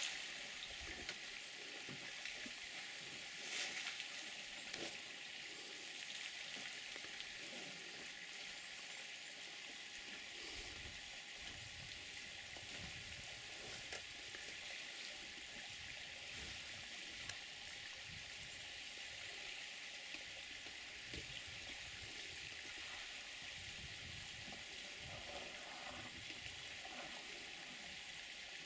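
Steady, faint outdoor hiss, with soft low rumbles coming and going in the second half.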